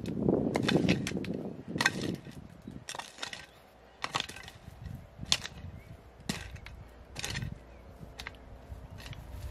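Long-handled metal hoe chopping and scraping through stony soil and dry leaves, about one stroke a second, each stroke with a sharp click; the strokes are loudest in the first second.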